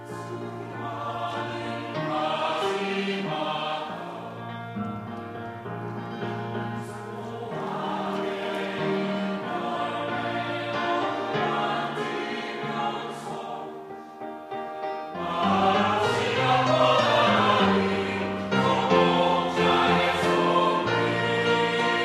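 Mixed church choir of men and women singing an anthem in sustained chords, swelling louder about fifteen seconds in.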